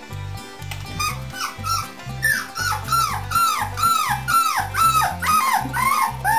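Four-week-old beagle puppies whimpering and yipping in a quick run of high, falling cries, about two or three a second, starting about a second in. Background music with a low bass beat plays underneath.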